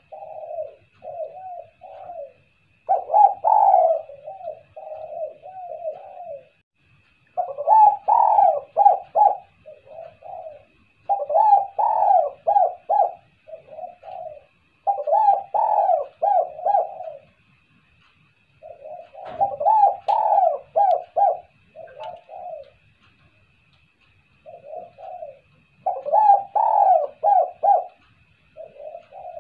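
Spotted dove (tekukur) cooing in repeated phrases. Each phrase is a quick run of several coos, and a new one starts every three to four seconds.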